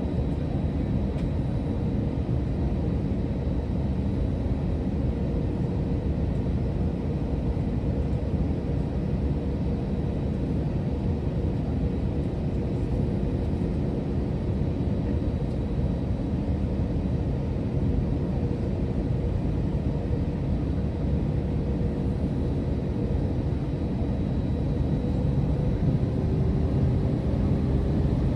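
Steady rumble of an Airbus A321-200's engines and airflow heard inside the passenger cabin, with a faint steady hum over it. It grows a little louder near the end.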